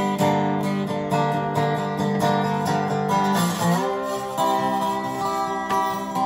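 Epiphone Dobro Hound Dog round-neck resonator guitar, with a laminated maple body and a nickel-plated Dobro cone, being picked and played with a metal slide. About three and a half seconds in, the notes glide in pitch under the slide.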